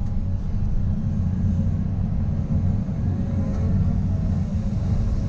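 Volvo 220 excavator's diesel engine running steadily under digging load, a dense low rumble with a faint wavering whine above it.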